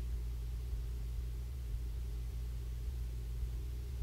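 Cessna 150's four-cylinder Continental O-200 engine and propeller giving a steady, low, muffled drone in the cabin during the landing approach.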